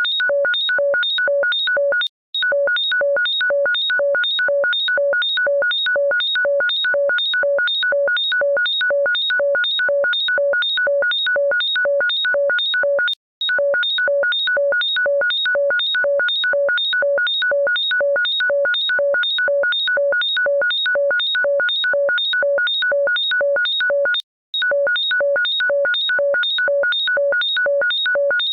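Electronic ringtone looping: rapid synthesized beeps, about three a second, each sounding several tones at once. The beeping stops for a moment about every eleven seconds as the loop restarts.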